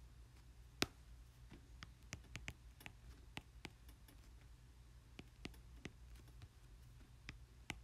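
Faint, irregular taps and clicks of a stylus on a tablet screen while a word is handwritten, one sharper tap about a second in, over a low steady hum.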